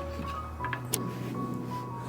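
Background music: soft held notes over a low bass, with a few faint clicks.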